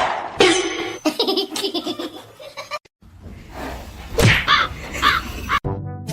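A person laughing in rapid repeated bursts, with a second round of laughter about four seconds in.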